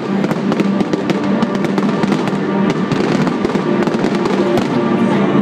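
Fireworks finale: aerial shells bursting in quick succession, dense bangs and crackling with no let-up, over music playing steadily beneath.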